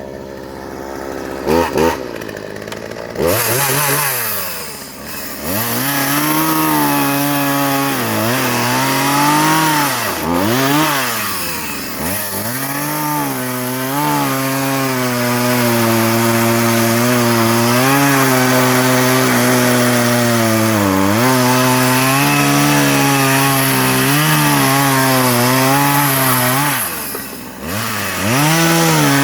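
Two-stroke chainsaw with a freshly sharpened chain, quiet for the first few seconds, then throttled up about three seconds in and run at high revs through wood. Its pitch dips and climbs back several times as the throttle is eased and the chain bites in, holding steady through long cuts.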